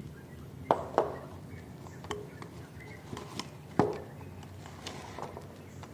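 Sharp clicks and knocks from handling a budget tripod and its clamp-style phone holder: two loud clicks about a second in, another near four seconds, and smaller ticks between.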